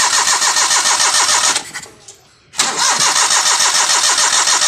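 Daihatsu Charade engine cranking on its starter motor without catching, in two spells with a short pause about a second and a half in. It is hard-starting, which the mechanic puts down to a dirty, leaking carburetor.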